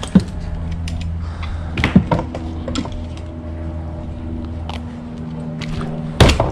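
Clicks and knocks of a landing net, hook and small sheepshead being handled on a plastic kayak deck, the sharpest just after the start and about two seconds in, over a steady low hum.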